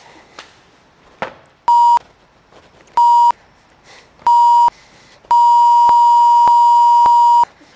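Censor bleep: a steady high beep sounding three times briefly, about a second apart, then held for about two seconds near the end, blanking out swearing.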